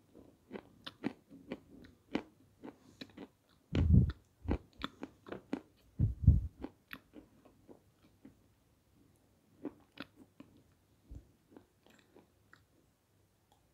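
Close-up crunching and chewing of lumps of peschanka, a dry, crumbly edible clay, with many short crisp crunches. Two heavier bites come about four and six seconds in, and the chewing thins out to scattered soft clicks in the second half.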